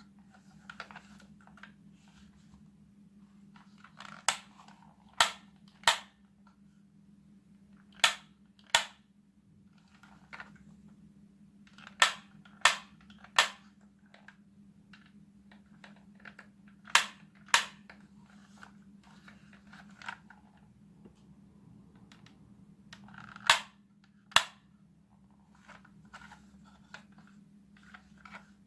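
Toy guns firing short, sharp bang sound effects in groups of two or three shots, with softer plastic clicks and handling between the groups.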